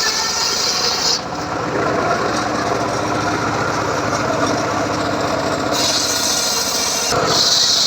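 Homemade circular saw rig sawing teak wood: the machine runs steadily while a high blade hiss drops out about a second in and comes back near the end, loudest at the close.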